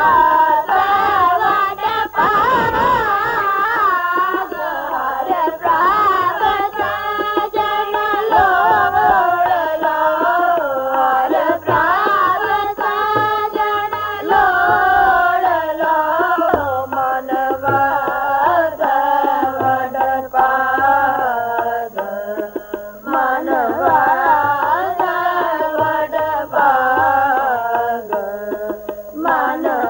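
Kirtan (a Sikh hymn): boys singing to harmonium, with tabla keeping the rhythm.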